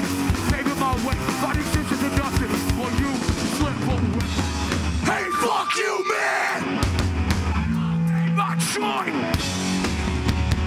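Hardcore punk band playing live: fast drums, distorted electric guitars and bass, with shouted vocals. About five seconds in the bass and drums drop out briefly, then heavy low chords come back in.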